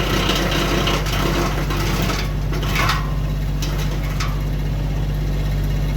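Kioti CK2610 diesel tractor running a PTO-driven Titan BX 42S wood chipper, engine droning steadily under load. Branches are chipped with a harsh grinding noise in the first half, which eases after about three seconds, leaving the chipper spinning with the engine.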